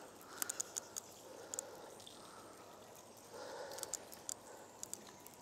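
Quiet riverbank ambience: a faint steady hiss with soft swells, and scattered light ticks and clicks at irregular moments.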